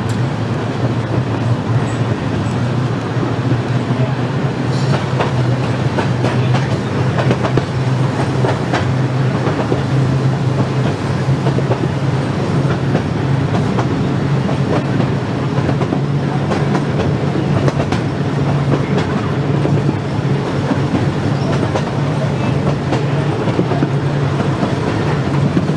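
Open-sided electric streetcar running along the track, heard from aboard: a steady rumble of wheels on rail with a low steady hum and frequent clicks.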